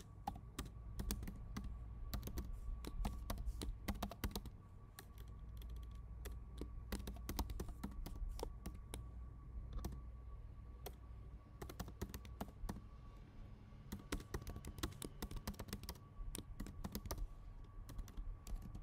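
Typing on a computer keyboard: quick, irregular runs of key clicks that pause briefly twice. A faint steady whine runs underneath.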